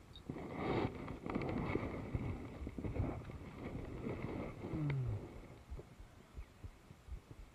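Handling noise from a fishing rod and spinning reel: rustling, scraping and small knocks as the rod is picked up off the rocks and gripped at the reel, fading near the end. About five seconds in there is a short low hum that falls in pitch.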